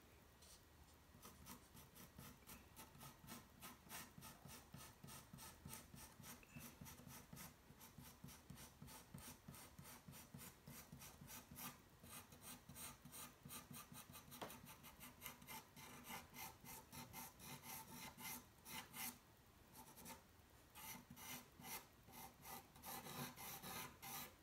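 Pencil scratching on toned drawing paper in quick, repeated short shading strokes, a few a second. Faint, growing louder toward the end, with a brief pause about twenty seconds in.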